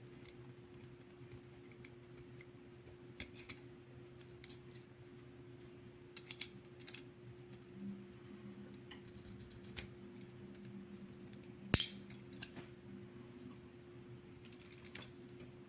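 Scattered metal clicks and small clanks of a Leatherman Charge multitool being handled, its tools folded open and shut, with one sharp snap about twelve seconds in.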